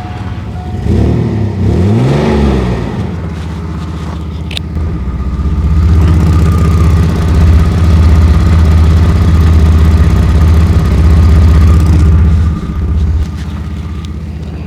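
2004 Chevy Blazer's 4.3-litre V6 running with an exhaust leak at the flange between the catalytic converter and the muffler, where a bolt has broken off. The engine is revved up and down about a second in, then runs louder for several seconds before dropping back to idle near the end.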